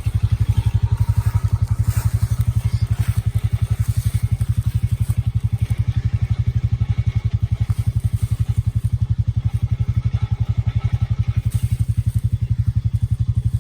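Honda 420 ATV's single-cylinder engine running steadily with an even, rapid low throb.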